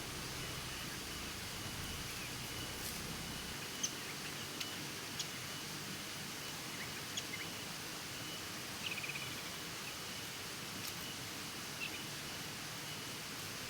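Scattered short, sharp bird chirps and a brief rapid trill about nine seconds in, over a steady outdoor hiss with a faint steady high tone.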